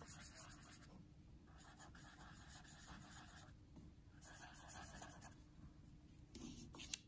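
Faint scratching of a pen on paper in three short spells, as five dots are drawn, with a sharp click near the end.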